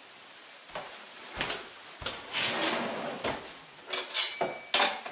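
Kitchen handling noises: a string of short knocks and clicks of the kind made by opening a drawer or cupboard, about eight over the few seconds.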